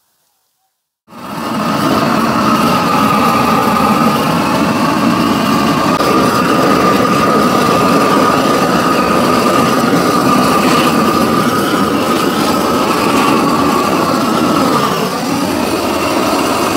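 A loud, steady, engine-like running sound with a held tone, which starts abruptly about a second in and dips briefly near the end.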